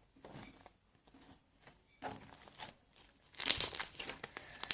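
Slime being squeezed and worked in the hands, crackling and popping as trapped air bubbles burst. Faint and scattered at first, then louder and denser from about three and a half seconds in.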